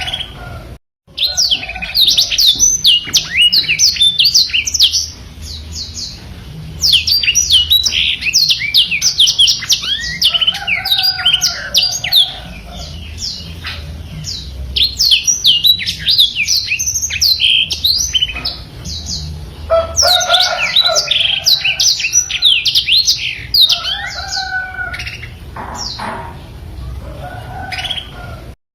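Black-throated canary (blackthroat) singing a fast, rolling song of rapid high chirps and trills in long runs, with short pauses between them. The sound cuts out briefly about a second in.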